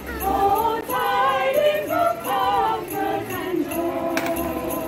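Small group of women carol singers singing together in harmony without instruments, with jingle bells shaken along.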